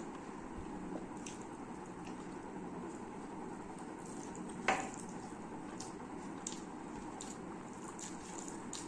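Close-miked eating sounds: wet, squishy chewing and mouth clicks, then fingers mixing rice on a steel plate, with soft scattered clicks and one sharp clink about halfway through.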